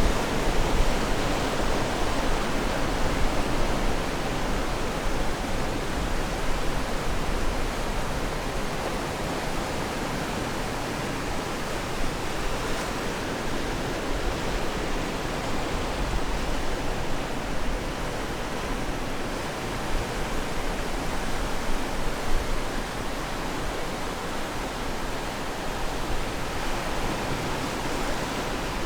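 Ocean waves washing onto the shore, a steady rushing noise that swells a little now and then.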